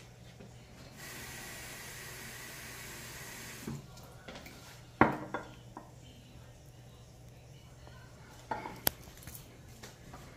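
A steady hiss for about two and a half seconds, then sharp knocks and clinks of glassware set down on a stone countertop, the loudest about five seconds in and a couple more near nine seconds.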